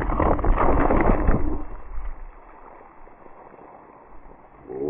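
Cola geyser from Mentos dropped into a bottle of Coke, spraying and splashing with a crackling fizz that dies away about a second and a half in. A pitched sound starts rising right at the end.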